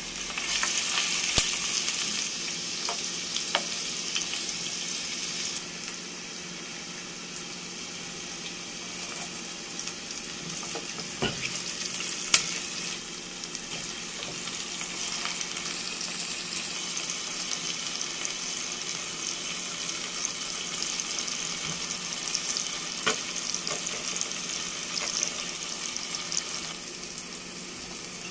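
Chopped onion and tomato sizzling steadily in hot oil in a pot while being stirred, with a few sharp clicks of the wooden spoon against the pot.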